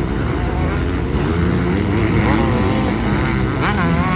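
Several motocross dirt bikes racing through a corner, their engines revving up and down with the throttle as the riders work the turn. One engine revs up sharply near the end.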